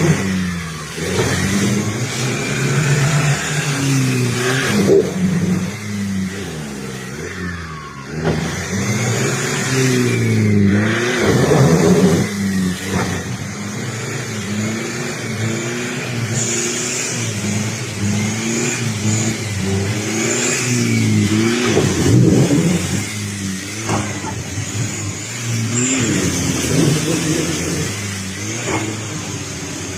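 Four-wheel-drive vehicle's engine revving up and down repeatedly under load, its pitch rising and falling every second or two.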